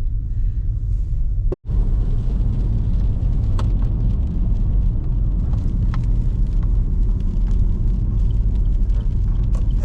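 Car driving on a wet road, heard from inside the cabin: a steady low rumble of engine and tyres, with light hiss and faint ticks above it. It cuts out for a split second about one and a half seconds in.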